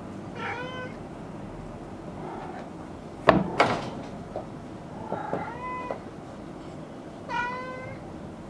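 Maine Coon kittens mewing during rough play: three short high mews, near the start, past the middle and near the end. About three seconds in come two sharp, loud knocks, the loudest sound here.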